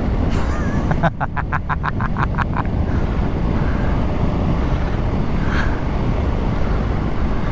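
BMW R1200GS flat-twin engine running steadily under way through a bend, mixed with wind noise on the microphone. About a second in, a quick run of some ten sharp pulses lasts a second and a half.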